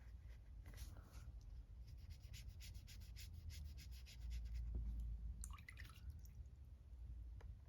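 Faint brush and handling sounds of watercolour swatching: a run of quick scratchy strokes of a paintbrush working paint, then a low bump about halfway through.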